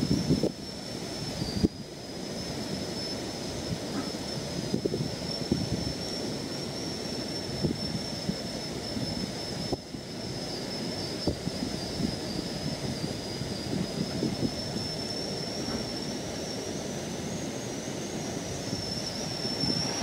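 Low, gusty rumble of wind buffeting the microphone, with a thin steady high-pitched whine over it.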